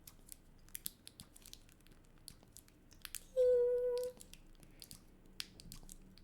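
Faint clicks and crinkles of food packaging and utensils being handled, with one short steady tone a little over halfway through.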